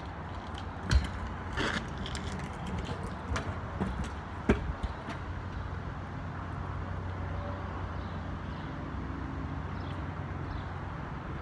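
A few sharp knocks of a stunt scooter on asphalt, the loudest about a second in and again near the middle, then a steady low hum.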